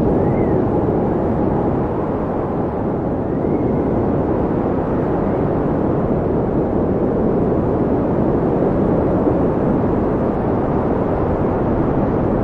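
Steady, low-pitched rush of wind blowing without letup, with two faint brief whistling tones in the first few seconds.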